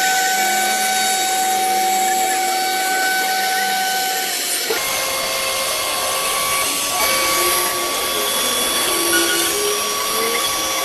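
CNC router spindle running with a steady high whine over a hiss, its tone dropping and turning rougher about five seconds in.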